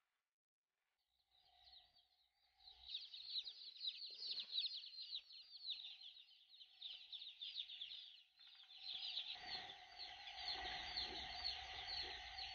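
A brooder full of chicks peeping: many short, high, falling cheeps overlapping in a continuous chorus that starts a couple of seconds in.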